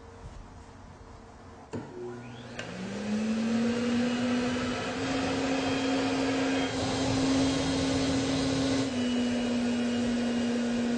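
Force 2 insulation blowing machine running, blowing cellulose through a hose into a wall cavity for dense packing: a steady hum under a rushing hiss. After a quieter first two seconds the hum rises in pitch and then holds steady.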